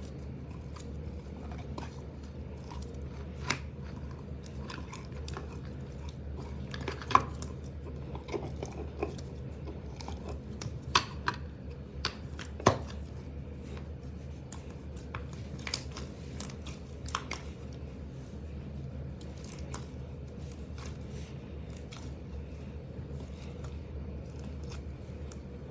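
Slime being squished and poked by hand: scattered soft clicks and crackles with a few sharper pops, over a steady low hum.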